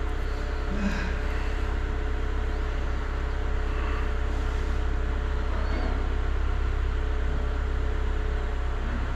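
A steady low mechanical hum with a faint, thin, steady tone above it.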